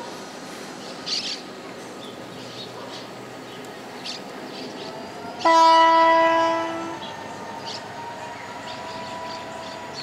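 GT22 diesel-electric locomotive moving slowly over yard switches with a steady low running noise. About five and a half seconds in, its multi-tone horn sounds one blast that lasts about a second and a half and fades away.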